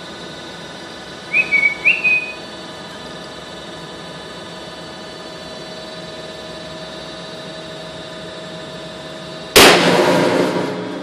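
Steel reinforcing bar snapping under tension in a hydraulic universal testing machine: one sudden loud bang near the end that rings away over about a second, over the machine's steady hum. A few short high chirps come about a second and a half in.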